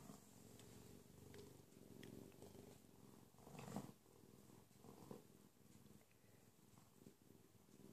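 Bobcat purring, a faint, steady, rapid pulsing purr, with one brief louder sound about three and a half seconds in.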